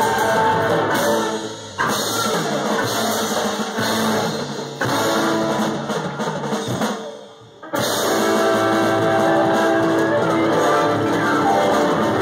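Live blues-rock band playing: electric guitars, bass, drum kit, keyboard and trombone. About seven seconds in the music thins out and almost stops, then the full band comes back in at once with long held notes.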